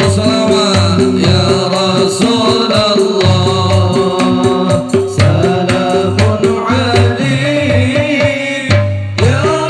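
Sholawat devotional singing over a sound system: a man's voice leading, with a group of male voices, over hand drums keeping a steady beat. The music breaks off for a moment near the end and comes straight back in.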